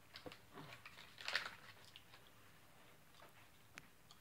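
Faint chewing of dry MRE vegetable crackers: small scattered crunches and clicks, with one louder, brief crunchy burst about a second and a half in.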